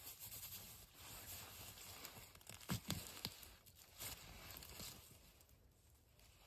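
Faint rustling and crinkling handling noise, with a few sharp clicks or snaps in quick succession around the middle, then dying away.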